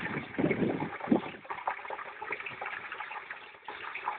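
Hot oil bubbling and crackling hard around a turkey being lowered into a propane deep fryer pot, louder and deeper for about the first second, then a steady crackle.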